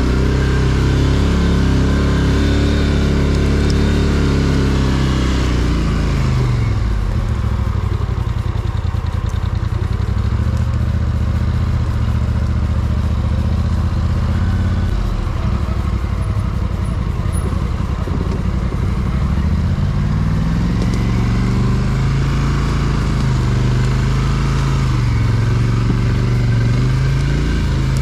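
Quad (ATV) engine working on a steep forest slope. It revs up and down over the first few seconds, settles to a low, steady run from about a quarter of the way in to about two-thirds, then picks up revs again and varies with the throttle toward the end.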